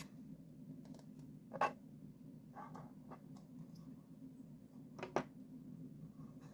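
Faint handling of small plastic parts and tools, with a few short clicks, the sharpest about a second and a half in and again near the end, over a steady low hum.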